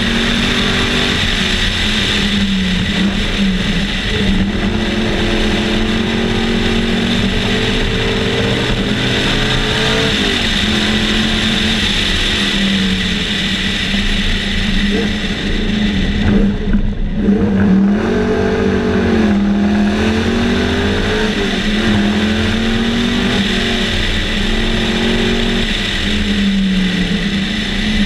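Sunbeam Tiger race car's Ford V8 heard from on board at racing speed, its pitch climbing and falling again and again through gear changes and lifts for the corners. About two-thirds of the way through it drops off briefly, then winds back up.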